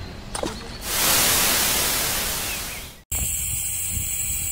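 A loud, even static-like hiss starts about a second in and lasts about two seconds, fading steadily. It cuts off abruptly into a low, steady outdoor background rumble.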